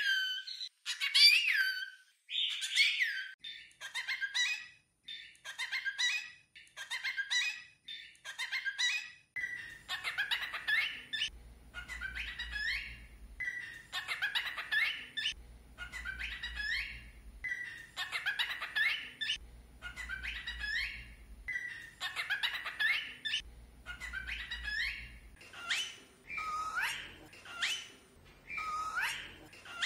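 Cockatiel calling and whistling in a string of short calls, about one a second, with quick rising and falling whistles.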